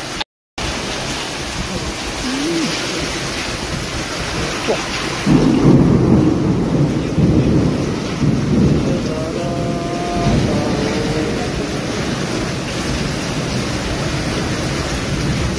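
Heavy monsoon rain pouring steadily. The sound cuts out for a moment just after the start, and a louder low rumble rises from about five to nine seconds in.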